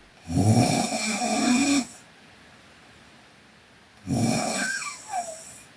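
A sleeping girl snoring: two snores about two and a half seconds apart, each lasting about a second and a half. The second one ends in a falling tone.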